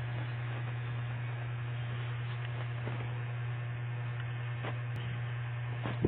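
A steady low hum with a few faint ticks over it.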